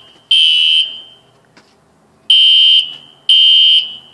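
Household fire alarm sounding during a test, giving high-pitched beeps about half a second long in groups of three, about a second apart, with a longer pause between groups. This is the temporal-three pattern that signals a fire evacuation.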